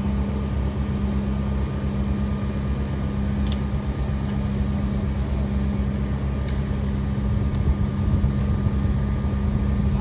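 Crane truck's diesel engine running steadily, a constant low drone with a steady hum.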